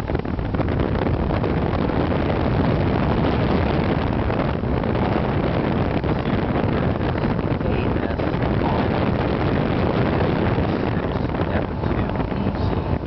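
1970s Fedders 6,000 BTU window air conditioner with its compressor switched off, its fan blowing air that rushes and buffets against the microphone.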